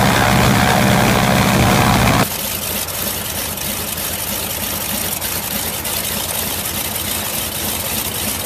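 Pratt & Whitney R-985 Wasp Jr. nine-cylinder radial engine running loudly on a test stand. About two seconds in it cuts abruptly to another R-985, idling more quietly in a Spartan Executive.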